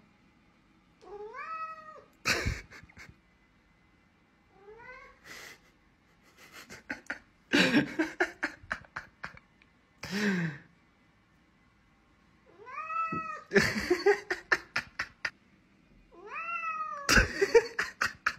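Domestic cat meowing repeatedly: four or five drawn-out calls that rise and then fall in pitch, with bursts of rapid clicks and knocks between them.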